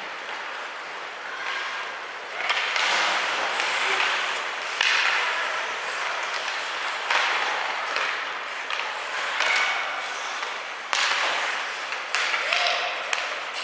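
Ice hockey play on an arena rink: sharp scraping bursts every couple of seconds, each cutting in suddenly and fading over about a second, as skates carve and stop on the ice, with light stick-and-puck knocks.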